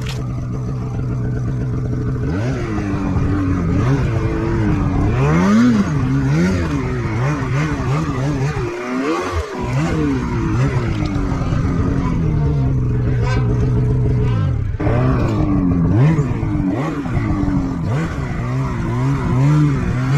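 Snowmobile engine held steady for a couple of seconds, then revving up and down again and again, with a brief let-off about nine seconds in.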